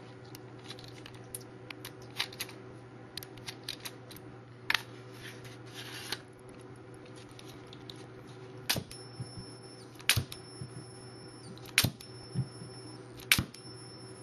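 Homemade coil gun pistol clicking as it is handled and switched, then four sharp snaps from about nine seconds in. Each snap is followed by a thin high-pitched whine of about a second from its capacitor charging circuit.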